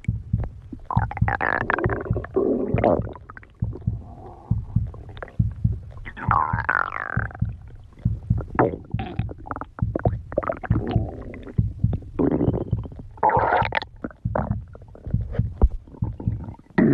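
A hungry person's stomach growling: a continuous, irregular low rumble made of rapid rattling pulses, swelling every few seconds into louder gurgles that slide up and down in pitch.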